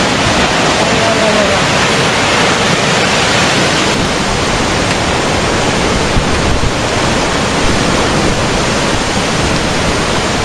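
Tsunami floodwater rushing through a flooded town: a loud, steady noise of churning water.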